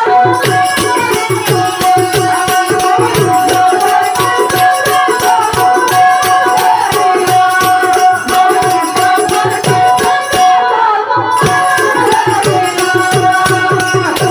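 Music with fast, dense drum and rattle strokes under a steady held note, and a melody line moving above it.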